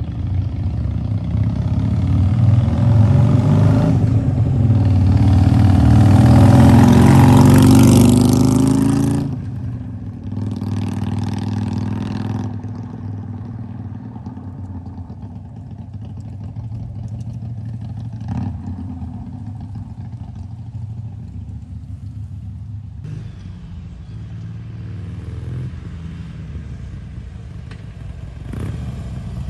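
Harley-Davidson Iron 883's air-cooled V-twin engine and exhaust building up in revs with rising pitch over several seconds, cutting back sharply about nine seconds in, then running at a lower steady speed.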